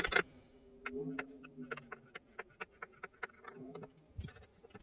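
A steel screw being twisted by hand into a drilled hole in a beech rifle stock, cutting threads into the wood: a run of small creaks and clicks, several a second.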